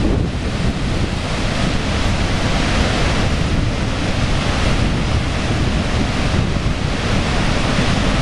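Niagara Falls: a steady roar of falling water and churning spray at the base of the falls, with wind noise on the microphone.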